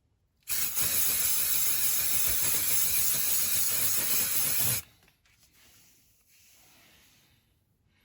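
Aerosol can spraying white primer onto a die-cast metal toy body in one steady hiss of about four seconds, starting about half a second in and stopping sharply.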